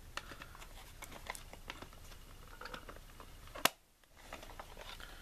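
Plastic VHS cassette shell being handled and fitted together by hand: light clicks, taps and rubbing of plastic parts, with one sharp click about three and a half seconds in.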